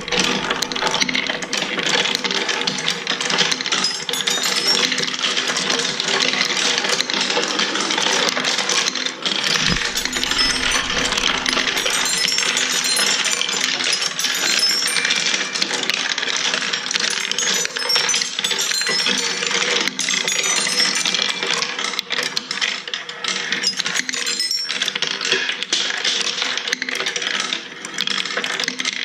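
Handmade wooden marble run in motion: marbles rolling and clacking continuously down wooden tracks, over a steady hum from its button-started lift mechanism. A single low thump about ten seconds in.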